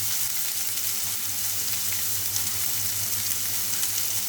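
Chopped onion, mushrooms, capsicum and cabbage frying in oil in a non-stick pan, a steady sizzle with a low hum underneath.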